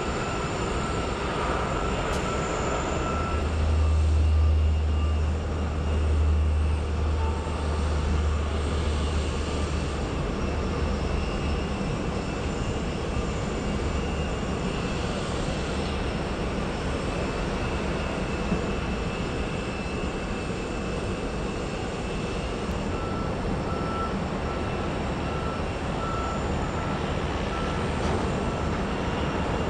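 Aircraft engine noise: a turboprop airliner's twin engines on the takeoff roll, with a deep rumble swelling from about 3 to 11 seconds in, then a steadier engine hum. Near the end a faint high beep repeats several times.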